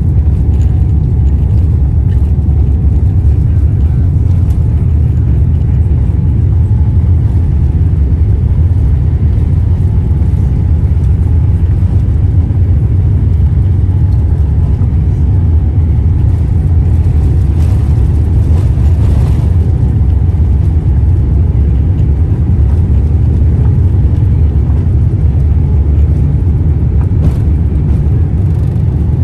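Steady, loud low rumble of engine and airflow noise inside the cabin of a Boeing 787-8 Dreamliner, with a few faint clicks in the second half.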